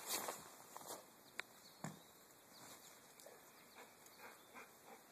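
Mostly quiet yard. A brief scuffle at the start as a golden retriever wheels round on wet grass and pine needles, then two faint clicks, and faint chirps of distant birds.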